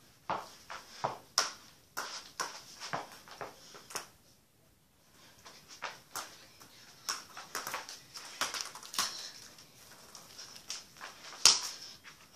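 A football being touched, tapped and bounced by bare feet, with feet slapping the floor: quick irregular knocks, a pause of about a second partway through, then more, the loudest near the end.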